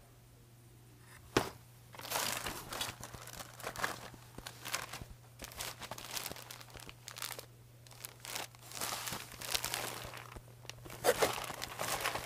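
A sharp knock, then rustling and crinkling of paper and plastic packaging in irregular bursts as items are rummaged through in a cardboard box.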